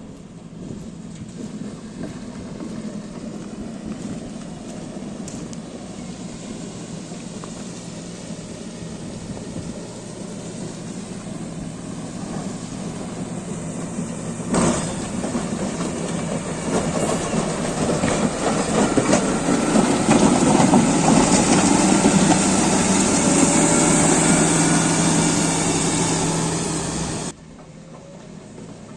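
Caterpillar 140GC motor grader's diesel engine running steadily, growing louder in the second half, with a sharp knock about halfway through. The sound cuts off suddenly near the end.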